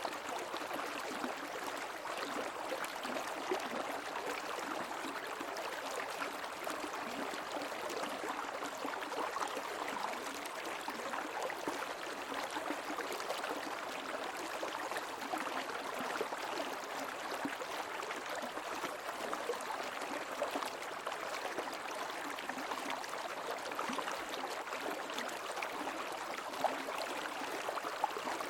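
Running water of a stream flowing steadily, an even rush with small splashes scattered through it.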